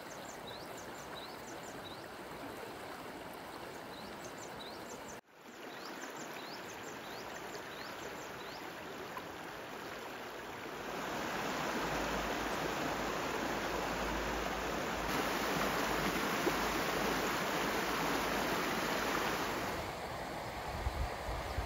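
Shallow stream running over stones in a riffle: a steady rush of water. It cuts out for an instant about five seconds in and grows louder from about eleven seconds in.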